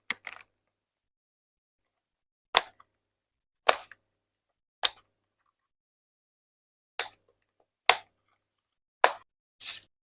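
Mechanical keyboard being handled: about eight separate sharp clicks and knocks a second or so apart, with silence between them.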